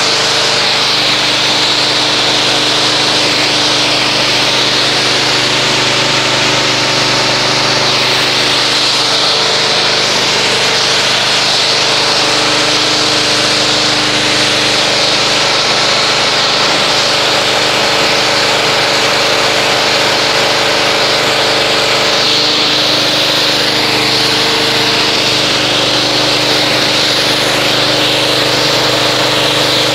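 Pressure washer running steadily while its spray hisses against a car's paint, rinsing off foamed car soap. The machine's hum shifts in pitch a couple of times, about a third and two thirds of the way through.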